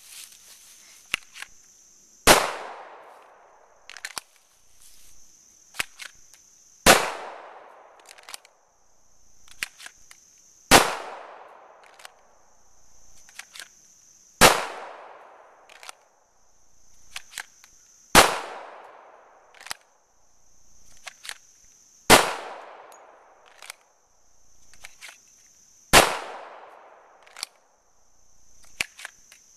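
Springfield XD Tactical .45 ACP pistol firing single shots, seven of them about four seconds apart, each with a short fading echo. Lighter clicks and knocks come between the shots, as the pistol is drawn from the holster for each one.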